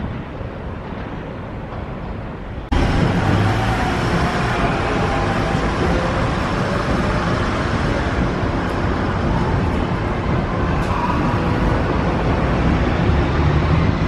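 Road traffic: cars, buses and trucks passing on a busy road, a steady wash of engine and tyre noise. About three seconds in, the sound jumps suddenly from a quieter low rumble with wind on the microphone to the louder traffic.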